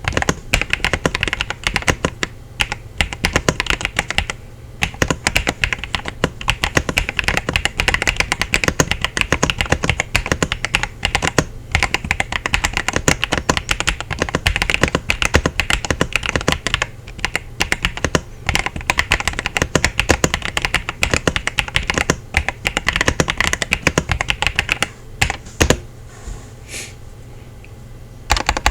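Fast typing on a KZZI K75 Lite mechanical keyboard: a dense, continuous run of keystroke clacks, with a few brief breaks and a pause of about three seconds near the end before typing resumes.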